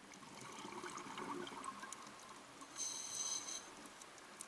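Faint underwater ambience: gurgling, bubbling water with scattered faint clicks, and a brief high hiss about three seconds in that lasts under a second.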